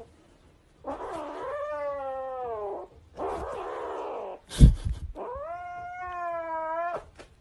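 Domestic cat yowling: two long, drawn-out calls, the first falling in pitch at its end, with a breathy unpitched stretch between them. A sharp thump, the loudest sound, comes about four and a half seconds in.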